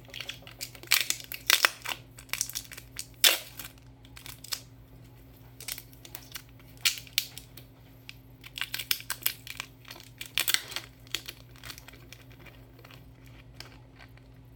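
Plastic wrap crinkling and tearing as a shrink seal is peeled off a spray bottle's trigger sprayer, an irregular run of crackles.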